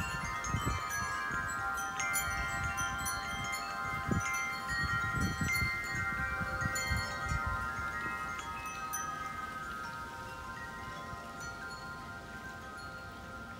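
Tubular wind chimes ringing, many overlapping tones struck again and again for about the first nine seconds, then ringing on and slowly fading.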